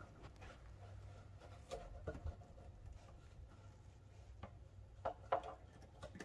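Faint knocks and clicks of plastic parts being handled and fitted inside an empty sand filter tank, the laterals going onto the hub, over a low steady hum.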